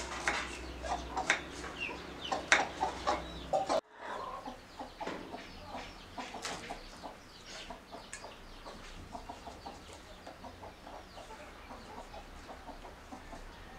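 A knife cutting raw banana on a wooden chopping board in a few sharp strikes during the first four seconds, then a run of short, repeated chicken clucks in the background.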